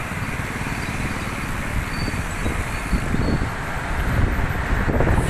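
Wind rushing and buffeting over the microphone of a camera on a moving bicycle, mixed with road noise; the rumble grows somewhat louder near the end.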